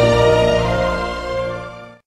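Background music with sustained notes, fading out over the last second and ending in silence.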